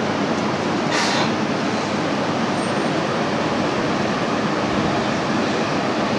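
Aoimori Railway 701 series electric train at the platform, its steady running noise filling the air, with a short hiss of air about a second in.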